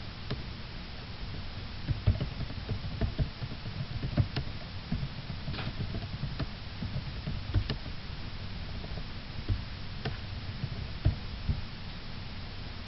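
Irregular light knocks and clicks, a few a second, over a steady low hum.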